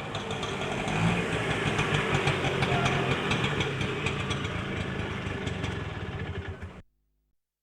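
Auto rickshaw engine running at a steady idle with a fast, even chugging beat. It cuts off abruptly near the end.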